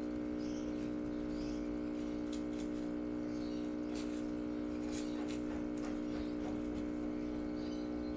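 A steady, even hum made of several fixed tones, with faint chirps now and then over it and a few light clicks near the middle.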